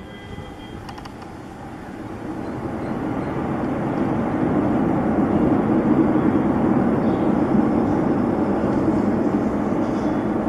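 Airbus A330 jet engines, a broad rumble that builds over the first few seconds and then holds loud and steady.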